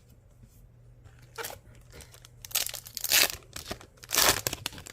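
Foil trading-card pack wrapper crinkling and being torn open, in a few irregular rustling bursts, the loudest about three and four seconds in.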